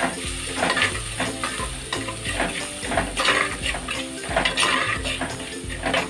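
A steel spoon stirring and scraping against a terracotta clay pot, in repeated strokes, as sliced onions, curry leaves and turmeric fry in hot oil with a steady sizzle.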